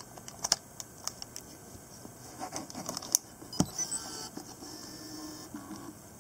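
Sharp clicks and knocks as the battery pack and door of a Fujifilm FinePix A210 camera are snapped shut. About four seconds in comes a faint, brief whir from the camera as it powers on.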